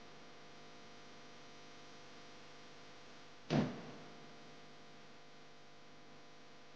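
A Toyota Vellfire's door being shut once, a single sharp thud about halfway through that dies away quickly, over a faint steady hum.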